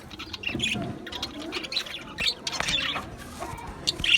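A colony of budgerigars chirping and chattering in short, scattered calls that overlap one another.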